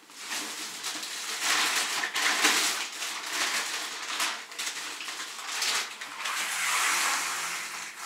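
Plastic grocery bag and frozen-food packaging rustling and crinkling, handled in irregular bursts as items are taken out.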